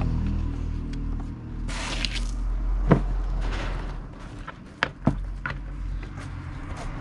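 PVC electrical tape being pulled off the roll in two short noisy pulls, with sharp clicks from the plastic speedometer housing being handled, over a steady low hum.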